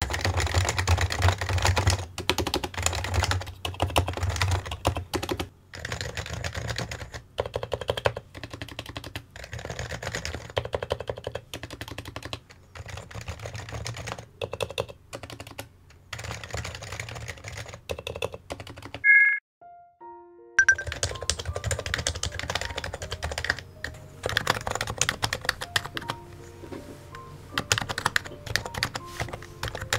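Continuous typing on a Topre electrostatic-capacitive keyboard: rapid runs of keystrokes with brief pauses. About two-thirds through the typing stops for a moment and a short chime sounds, then the typing resumes over soft background music.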